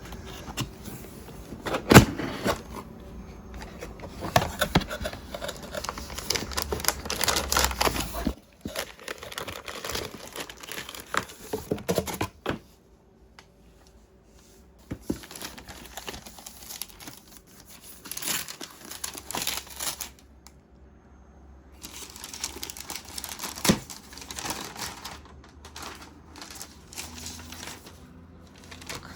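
Keyboard kit packaging being unpacked: plastic wrap and foam crinkling and tearing in irregular spells, with a few sharp knocks as the box and board are handled.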